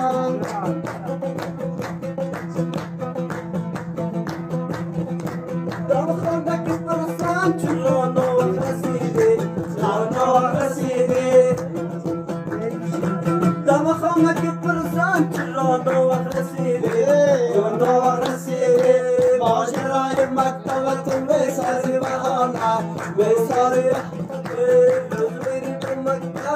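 Afghan dambura music: a plucked long-necked two-string lute played in a quick rhythm over a steady low drone, with a melody line that bends in pitch and a singing voice at times.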